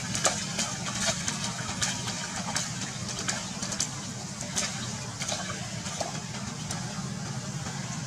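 Water splashing in irregular short bursts as young monkeys run and play in a shallow puddle, over a steady low hum.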